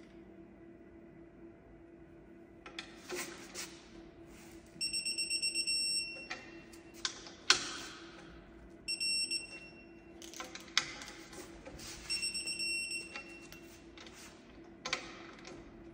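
A digital torque wrench beeping in rapid trains of short, high beeps, about a second each, three times, signalling that each propeller hub bolt has reached its set torque. Between the beeps are sharp clicks and knocks of the tool on the bolts, over a steady low hum.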